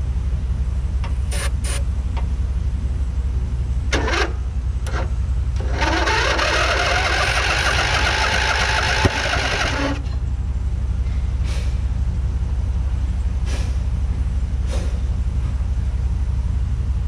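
Riding lawn mower's 21 HP engine cranked on brake cleaner sprayed into the intake: a few sharp clicks, then about six seconds in it fires and runs loudly, rising in pitch, for about four seconds before cutting off suddenly. The owner suspects a stuck valve. A steady low engine hum runs underneath throughout.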